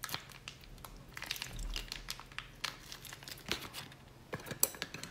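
Thin plastic sauce bag crinkling and crackling in the hand as chili sauce is squeezed out of it, a scattered run of light crinkles and clicks.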